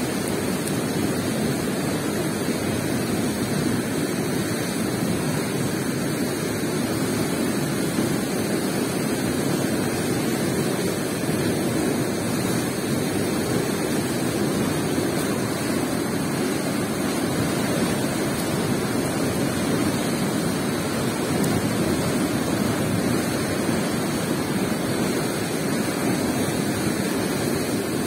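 Steady outdoor rushing noise, even and unbroken, with no distinct knocks, splashes or calls.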